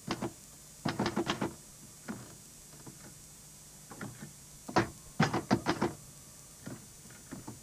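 Typewriter keys striking in short bursts of rapid clicks, pausing between words. The busiest bursts come a little after one second in and around five seconds in.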